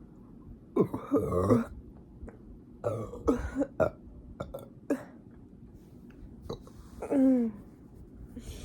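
A person burping several times: a long, loud burp about a second in, a few shorter ones over the next few seconds, and another burp with a falling pitch near the end.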